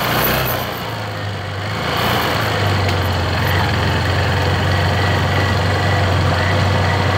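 Motorcycle engine running steadily at low revs, close to idle, with a brief drop in level about a second in.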